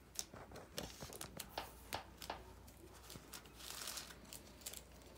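Hands handling a stack of Spellfire trading cards: a run of small sharp clicks and rustles as cards are shifted, then a longer crinkling rustle about three and a half seconds in.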